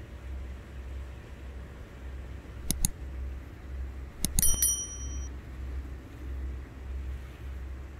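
Sharp metallic clinks with a short bell-like ring: two close together, then a quick cluster of four about a second and a half later. Under them runs the low steady drone of a motor yacht underway.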